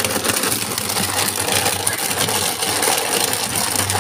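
Deuron electric blender motor running steadily, blending milk, chikoo and banana into a milkshake.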